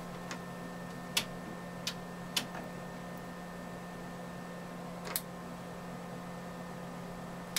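A few sharp single clicks, three close together in the first few seconds and another about five seconds in, as the Tektronix 2215 oscilloscope's volts-per-division rotary switch is turned through its detents, over a steady low hum.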